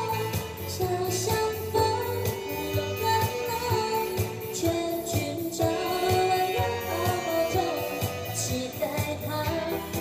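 Live music: a woman sings into a microphone, backed by a saxophone and an electronic keyboard with a steady beat.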